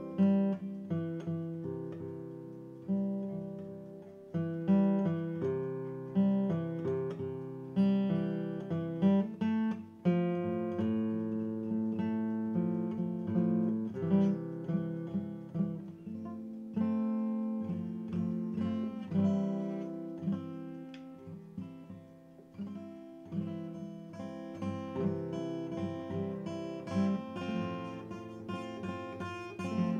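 Background music of acoustic guitar, with picked notes and strummed chords and no singing.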